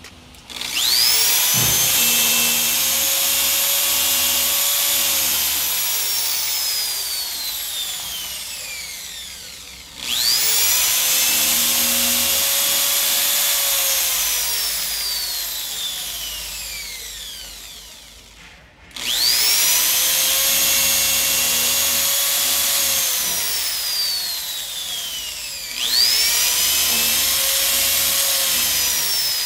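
Handheld electric drill boring holes through a notebook's paper stack, run four times. Each run starts with a quick rise in pitch, then sinks slowly in pitch and loudness over several seconds.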